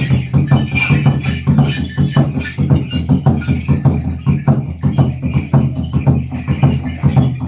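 Ritual percussion played in a fast, steady beat, about seven strokes a second.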